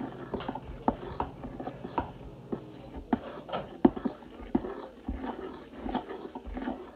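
Utensil clicking and scraping against a plastic mixing bowl as pancake batter is stirred by hand, irregular taps several times a second with one louder knock near the middle. A faint low hum stops about three seconds in.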